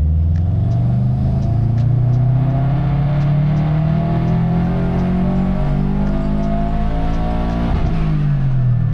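2011 Subaru WRX's turbocharged 2.5-litre flat-four on a hub dyno making a full-throttle pull, its revs climbing steadily through the gears' range for about eight seconds with boost turned up. Near the end the throttle closes and the revs drop away sharply.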